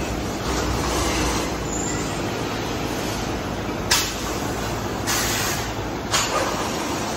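Steady factory-floor noise, broken by two sharp metal clanks, about four and about six seconds in, as a metal RV entry-step assembly is set down on a stack of others. A short hiss comes between them.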